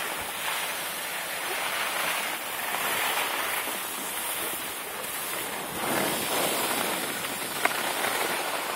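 Steady rushing noise of skiing on a groomed run: skis sliding over packed snow mixed with wind across the microphone, swelling and easing. There is one sharp click near the end.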